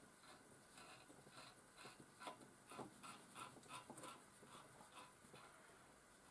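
Near silence, with faint, scattered clicks and scratchy ticks, most of them in the middle seconds.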